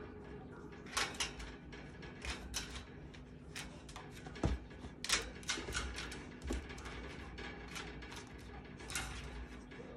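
Golden retriever puppy pawing at its playpen, claws clicking and scratching on the wooden top rail and wire bars, which rattle irregularly. There is a cluster of clicks about a second in and a few sharper knocks near the middle.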